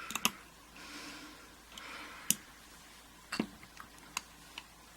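Small parts of a dismantled pin-tumbler lock being handled: a few sharp clicks, the loudest about two and a half seconds in and another about a second later, with light rustling and scraping in between.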